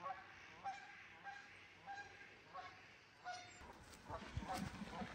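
Geese honking, faint short calls repeating about every half second to second. About three and a half seconds in, a louder run of low thuds starts under the calls.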